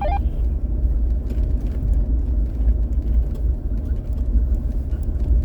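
Jeep driving along a snowy back road: steady low engine and road rumble.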